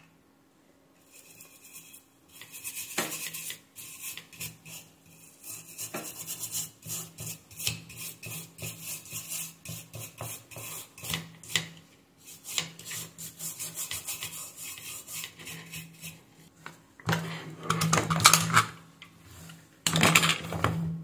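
Stiff brush scrubbing a circuit board around a freshly soldered SMD chip: quick, irregular scratching strokes over a faint steady hum. Near the end come louder rustles and knocks as the board and tools are handled on the bench.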